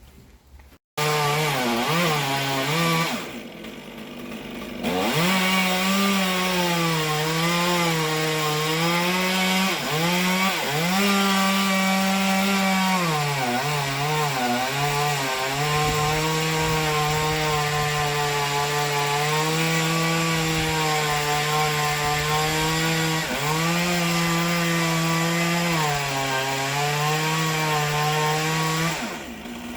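Gas chainsaw running under load as it cuts through the silver maple's wood, its engine note dipping and recovering several times as the chain bites. It starts abruptly about a second in, eases off briefly, then runs steadily, falling away near the end.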